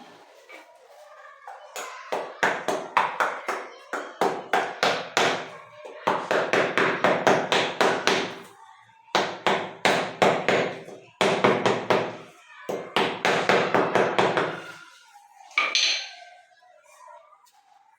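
Hand tool tapping and working cement mortar packed around a new floor drain. The taps come in four quick runs, about three or four a second with a slight ringing, followed by a single knock near the end.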